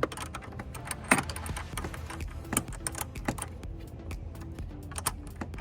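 Irregular metallic clicks and taps of a 10 mm tool loosening the car battery's negative terminal nut, over background music.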